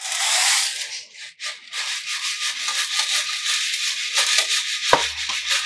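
Steel balls and old timing chains scraping and rattling inside a motorcycle petrol tank as it is tipped and shaken, with the petrol-and-diesel mix sloshing out of it; the loose metal is scouring rust off the tank's inside. The noise is loudest in the first second.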